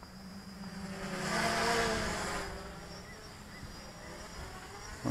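Quadcopter with SunnySky X2212 brushless motors and 8-inch two-blade props buzzing in flight, with a steady drone that swells louder about a second in and fades again as the craft passes closer.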